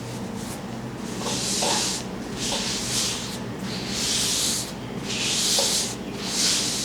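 Five close rubbing strokes in a steady rhythm, each a hiss lasting under a second: massage strokes rubbing over skin or hair.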